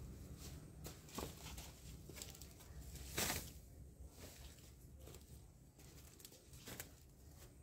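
Faint rustling of leafy vegetation and footsteps through undergrowth as an armful of pulled greens is carried, with scattered short crackles and one louder rustle about three seconds in.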